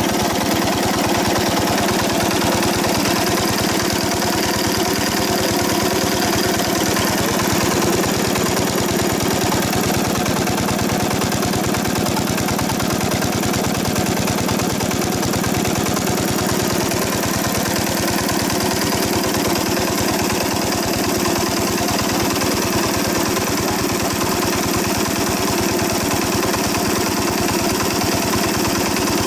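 Old stationary diesel engine running steadily and smoothly as it drives an irrigation water pump, with a rapid, even firing beat.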